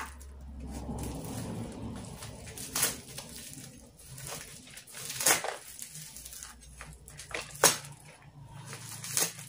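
Plastic sack packaging being cut open with a knife and handled: soft rustling, broken by four sharp snaps or cuts a couple of seconds apart, the loudest near the end.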